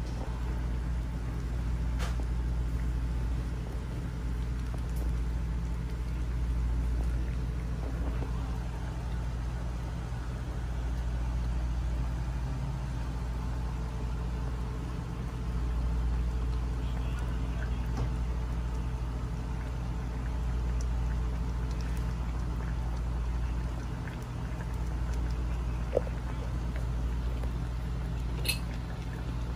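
Steady low rumble and hum of kitchen background noise beside a wok on a gas stove, with a couple of light clicks near the end.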